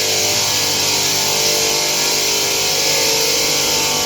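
Stone-cutting machinery running steadily: a loud, even hiss over several steady motor tones.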